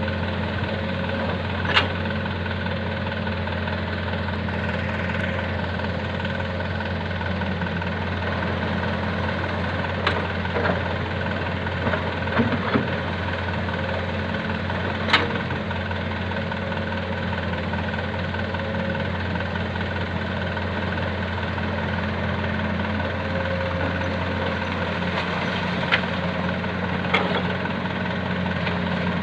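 Diesel engine of a Komatsu PC200 excavator running steadily while it loads river sand into a dump truck, with several short, sharp clanks and knocks from the bucket and load.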